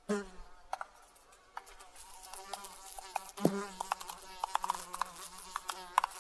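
An insect buzzing on and off, among many short chirps and clicks, with one louder sharp sound about three and a half seconds in.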